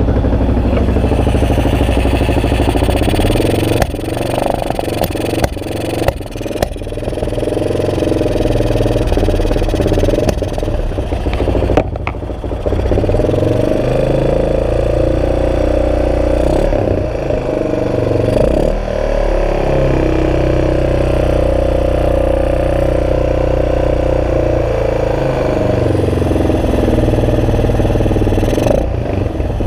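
Yamaha XT600E's single-cylinder four-stroke engine running and being revved, the pitch rising and falling, with brief dips in loudness several times in the first half, the misfire the bike is known to have.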